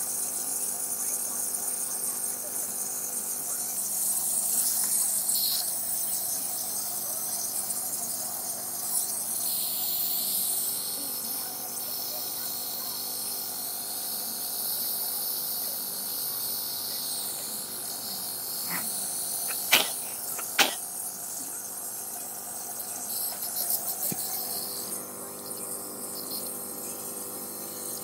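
Nebulizer compressor running steadily, a hum with a high hiss, while a child is given a breathing treatment. Two sharp clicks come close together about twenty seconds in.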